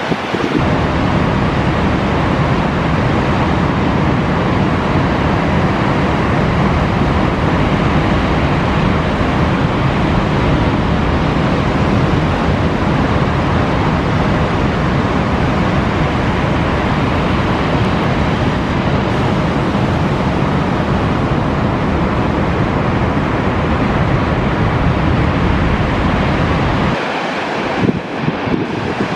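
Heavy surf breaking, a steady roar of waves mixed with wind buffeting the microphone. The low rumble thins out near the end.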